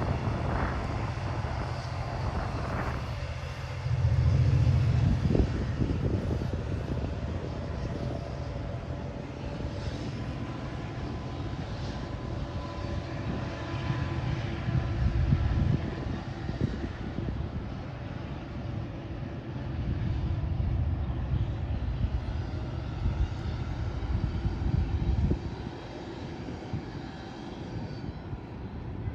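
Passenger train running as it pulls out of the station: a continuous low rumble that swells and eases, loudest about four seconds in and again near the middle and later on, over a faint steady whine.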